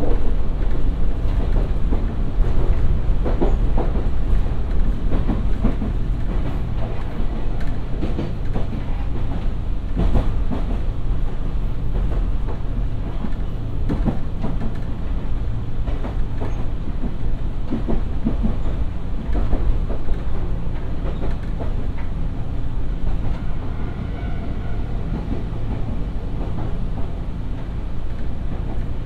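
Nankai 2200 series commuter train running along the track, heard from on board: a steady low rumble, with the wheels clicking over rail joints every few seconds.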